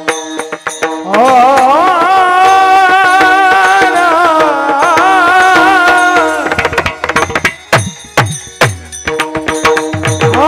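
Devotional singing in raga Bhairavi: one voice holds a long, ornamented line over a steady drone, then about six and a half seconds in the voice stops and mridang strokes with small hand cymbals carry on.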